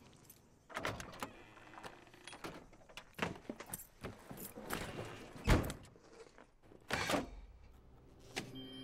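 Clicks and clunks of someone handling a car: keys jangling and door and latch noises, with the loudest, a low thump, about halfway through.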